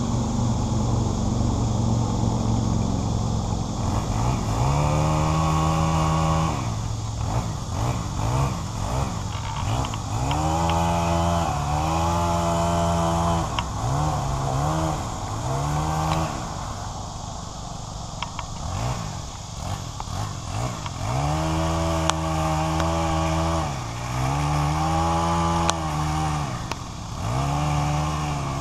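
A small engine idling, then revving up and down over and over from about four seconds in, each time held at high speed for a second or two before dropping back.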